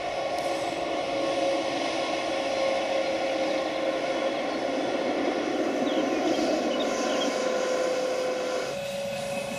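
A 1944 ABDe 2/4 electric railcar running past, a steady high hum over the rushing running noise of its wheels on the rails. The lower running noise drops away near the end.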